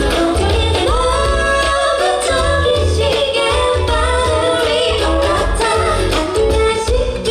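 A female singer singing live over a pop backing track with a steady pulsing bass beat.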